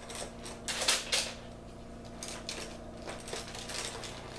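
Pens and other school supplies being handled: light plastic clattering and rustling, with louder rattles about a second in.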